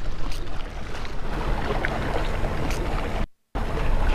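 Wind rumbling on the microphone over sea water washing against the rocks of the shoreline. It cuts out briefly about three seconds in.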